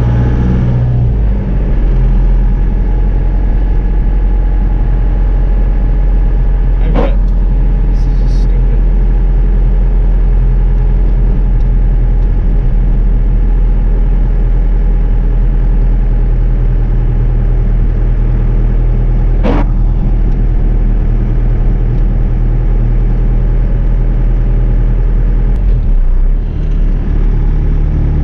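Inside the cab, a 4BT Cummins four-cylinder turbo diesel in a 1982 Ford F-150 runs with a steady low drone while the truck is under way. The engine note changes about a second in and again near the end. Two brief sharp knocks come through, one about seven seconds in and one near twenty seconds.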